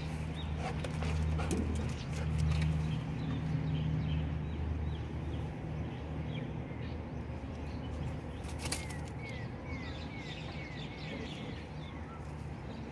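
A bird calling, with scattered high chirps and then a quick run of about seven short falling notes, around three a second, over a low steady hum.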